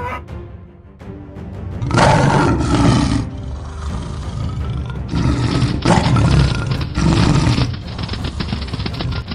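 Tiger roar sound effects, three of them, about two, five and seven seconds in, over background music.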